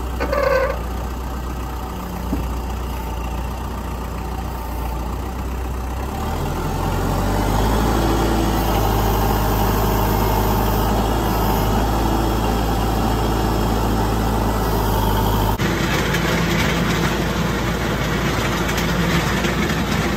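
Kubota MX5100 tractor's turbocharged diesel engine running, first at idle, then speeding up about six seconds in and holding a steady higher speed. The sound changes abruptly about three-quarters of the way through.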